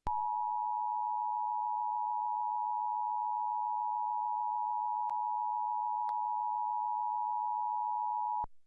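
Emergency Alert System attention signal: the steady two-tone alert tone (853 Hz and 960 Hz together) sounding for a national test of the system. It holds at one even pitch and level for about eight seconds, then cuts off abruptly.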